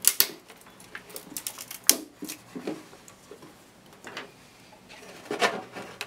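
A dry twig being pushed and worked through holes in a cardboard beverage carton: scattered sharp clicks, with scraping and rustling of wood against the carton.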